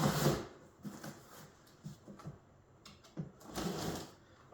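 Scattered light handling noises: a few soft knocks and rustles, the loudest right at the start and another cluster about three and a half seconds in.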